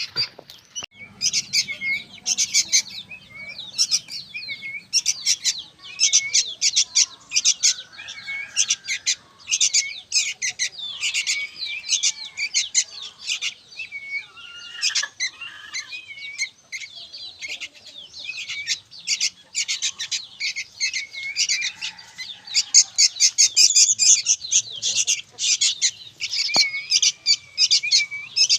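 Young sooty-headed bulbul (kutilang) chirping noisily and without pause, in quick runs of high calls.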